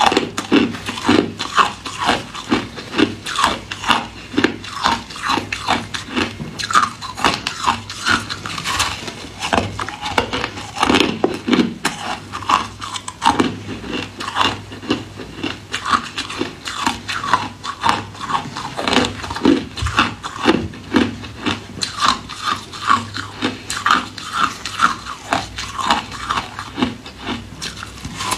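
A person biting and chewing ice close to the microphone: a continuous run of sharp crunches, a few every second.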